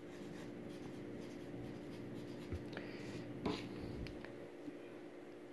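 Felt-tip marker writing on paper: faint scratchy strokes, with a few small ticks of the tip on the page around the middle.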